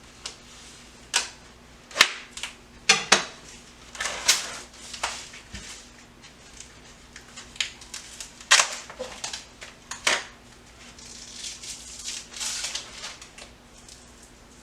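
Kitchen prep handling: irregular sharp knocks and clacks of items being set down and moved on a countertop, the loudest about two seconds in and again past halfway, with a stretch of rustling near the end.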